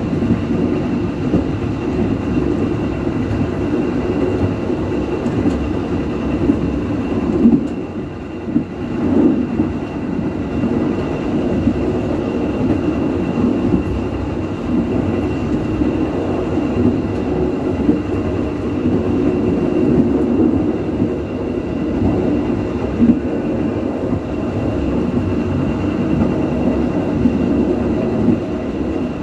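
Passenger train running along the track, a steady rumble of wheels on rails heard from inside the rear of the train, with a faint steady high whine.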